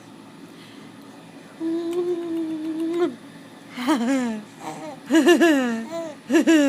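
A woman's long, steady drawn-out "I doooo", followed by a young baby laughing in several short bursts.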